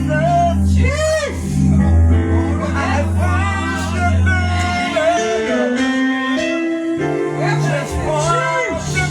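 Live gospel worship singing: a solo voice sings long, wavering held notes with heavy vibrato over sustained instrumental chords and bass.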